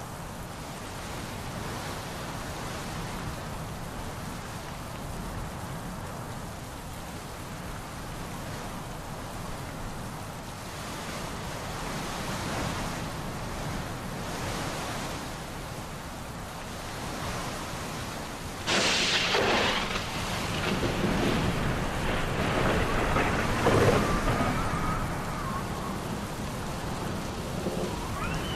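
Steady heavy rain hissing throughout. About two-thirds of the way in, a sudden loud thunderclap cracks and then rumbles on for several seconds before dying back into the rain.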